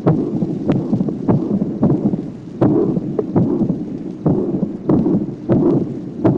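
Recorded heart sounds of a patient with mitral valve disease in atrial fibrillation: about ten sharp beats at uneven spacing, each a loud first heart sound. Between the beats runs a continuous low rumbling noise, the pansystolic mitral regurgitation murmur, with an opening snap after the second sound.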